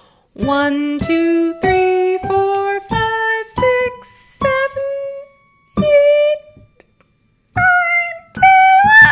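A woman singing the numbers one to twelve, one number on each note, climbing step by step up a major scale. The notes get high toward the end.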